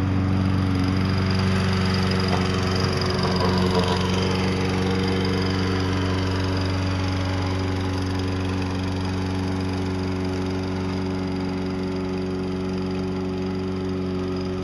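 Walk-behind self-propelled lawn mower's small engine running steadily under load as it pushes snow with a homemade plow box on its front, slowly getting fainter as it moves away.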